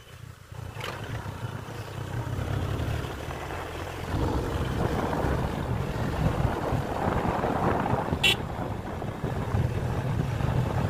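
Motorcycle riding along a road: engine rumble mixed with wind buffeting the microphone, getting louder about four seconds in. A brief high-pitched blip sounds about eight seconds in.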